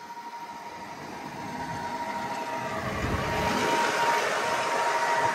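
John Deere 8345R tractor's diesel engine running with a steady whine, getting louder as it is approached.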